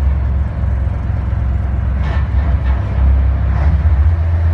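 Tugboat's Mitsubishi 10DC11 marine diesel main engine running with a deep, steady drone, growing slightly louder about three seconds in.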